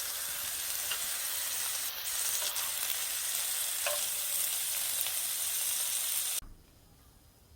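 Food sizzling in a hot pan, a steady frying hiss with a few small pops, which cuts off suddenly near the end.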